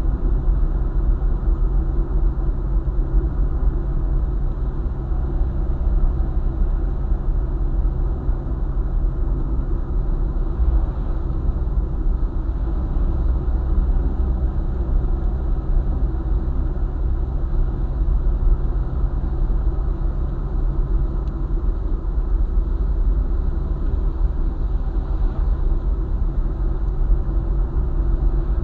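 A car driving along the road: steady low rumble of engine and tyre noise that stays even throughout.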